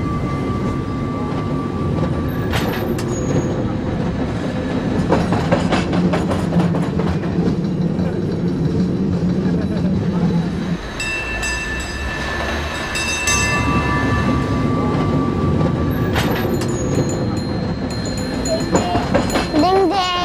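San Francisco cable car riding along its street tracks: a steady rumble and clatter, with high ringing tones about halfway through and again near the end.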